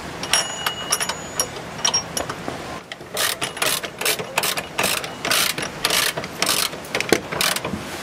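A hand socket ratchet run in quick clicking strokes, about three a second, from about three seconds in, spinning a nut up a transmission mount bolt; faint metallic clicks of the socket being fitted come first.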